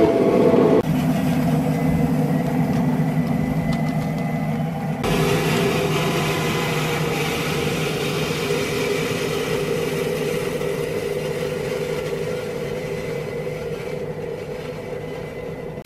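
Ride-on scale locomotive running steadily as it pushes a wedge snow plow along track covered in icy, crusted snow, a mix of motor hum and the noisy scrape of plowing. It grows gradually quieter toward the end.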